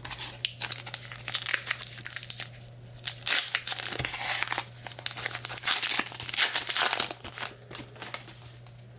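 A 2022 Topps Gypsy Queen baseball card pack being torn open, its wrapper crinkling and crackling in quick, irregular rustles, busiest through the middle.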